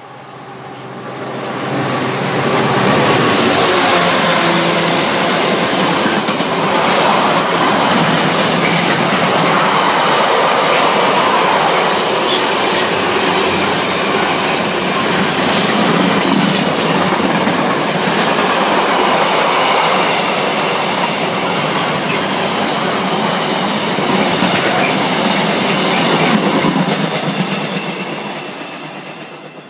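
Intermodal container freight train passing at speed: a steady rumble and clatter of wagon wheels on the rails. It builds over the first two seconds and fades near the end as the last wagons pull away.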